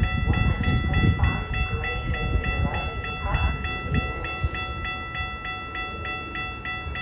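Railroad grade-crossing warning bells ringing in a quick, even rhythm as a train approaches, over a low, uneven rumble.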